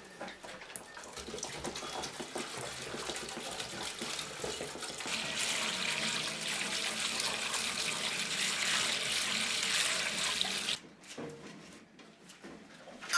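Borehole water pouring from a pipe into a trough or tank, a steady rush that grows stronger about five seconds in and stops abruptly near the end.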